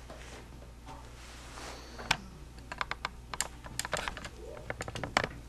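A rapid, irregular run of light clicks and taps, several a second, starting about two seconds in, over a low steady hum.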